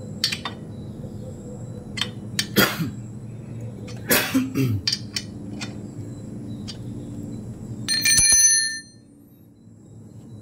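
Scattered sharp clicks and metallic knocks of hands and tools working on a motorcycle's cylinder head, the loudest around three and four seconds in. About eight seconds in there is a brief bell-like metallic ring of under a second.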